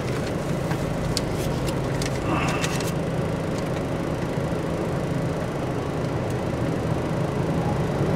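Steady engine and road noise of a car driving in slow city traffic, heard from inside the cabin as a low hum, with a few light clicks about one to three seconds in.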